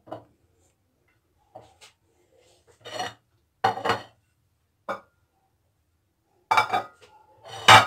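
Porcelain plates clattering and clinking as they are handled and set down on a tiled surface, in a series of short knocks with a little ringing; the loudest comes near the end.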